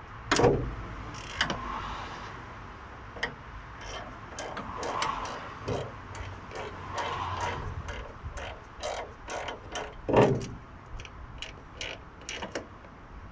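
Metal clicking and clinking of a spanner working a bolt on a van's bonnet hinge, with two louder clunks, one near the start and one about ten seconds in.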